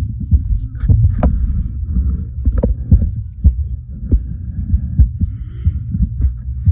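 Irregular knocks and thumps over a steady low rumble, close on the phone's microphone: handling and bumping noise.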